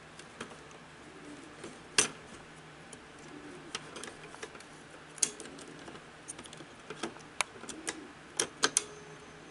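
Small sharp clicks and ticks of plastic and metal parts being handled in the opened Sony SL-100 Betamax deck's reel-table mechanism. They come irregularly, the loudest about two seconds in and a quick cluster near the end.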